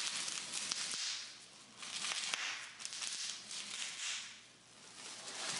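Bubble wrap being handled: plastic crinkling and crackling with many sharp clicks, swelling and dipping in loudness.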